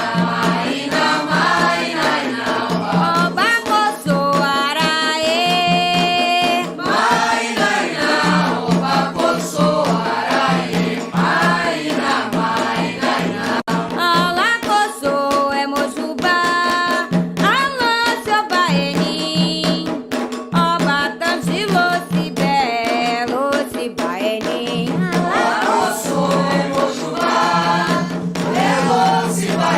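Candomblé cantiga for Xangô: voices singing a Yoruba-language chant over a steady drum rhythm.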